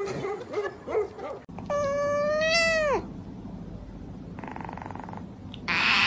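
A dog calls briefly at the start. About two seconds in, a kitten gives one long meow that drops in pitch as it ends. Near the end, a louder, noisier sound starts.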